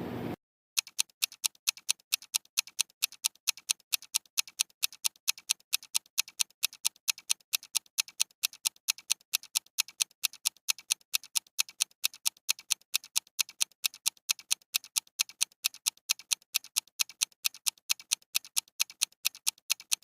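Clock-ticking countdown timer sound effect: an even run of sharp ticks, about four a second, counting down the 20 seconds.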